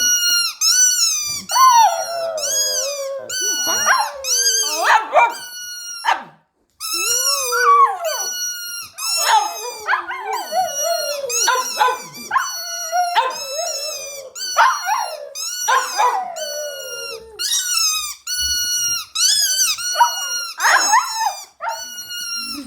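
A dog howling and whining in a long series of high, wavering cries, about one a second, each sliding up and down in pitch, with a short pause about six seconds in; the howling is set off by a squeaky toy.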